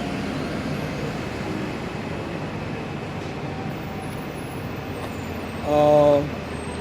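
Steady road traffic noise, an even rumble of passing vehicles, with a short hum of a voice near the end.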